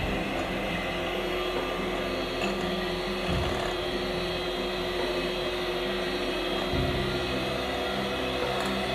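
Electric hand mixer running steadily, its beaters whisking raw eggs in a glass bowl.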